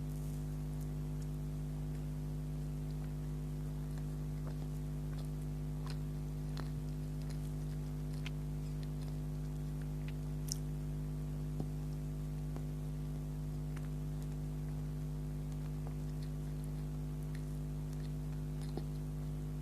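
Steady low electrical hum with scattered soft clicks and mouth sounds of chewing soft pastry. Two sharper clicks stand out about ten seconds in, a second apart.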